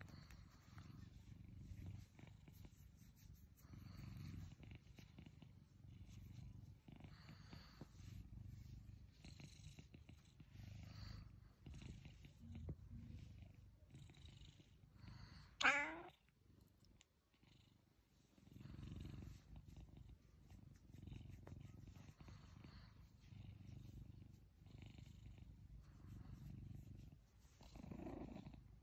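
Domestic cat purring while being stroked, a faint low rumble that swells and fades with each breath. About halfway through, a short call falls sharply in pitch, the loudest sound; the purring then stops for about two seconds before starting again.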